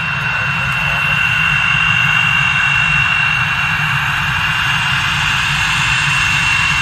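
Swiss Air Force F/A-18 Hornet's twin General Electric F404 turbofans running on the runway: a steady high-pitched whine over a low rumble and a broad rush of jet noise.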